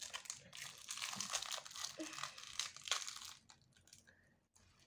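Small crinkly wrapper of an LOL Surprise toy packet being crumpled and torn open by hand. The crinkling stops about three and a half seconds in.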